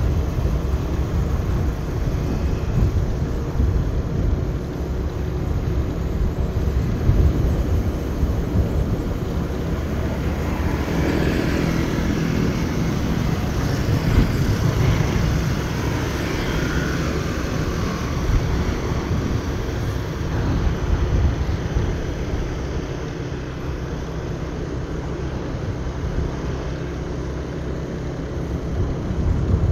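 Motorbike riding along at speed: steady wind buffeting the microphone over the engine's drone. About ten seconds in, a second motorbike's engine comes close and fades away again a few seconds later.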